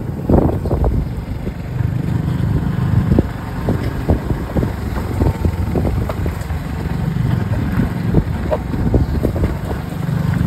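Motorcycle engine running while riding along a rough dirt road, with frequent short knocks from the bumps.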